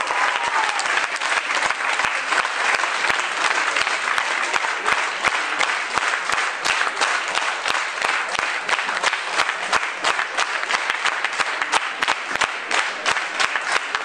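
Audience applauding after an orchestra finishes a piece, a dense spread of hand claps, with single claps standing out more clearly in the later part.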